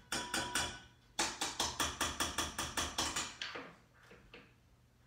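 Metal spoon stirring honey into yeast and warm water in a small stainless steel bowl, clinking against the side in a quick rhythm of about six strokes a second. The strokes slow and fade out about four seconds in.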